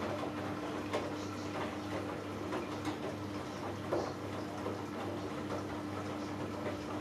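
Hoover Dynamic Next DXA610IW3 washing machine in its final spin: a steady hum with a constant whine at one pitch, and scattered light clicks and ticks.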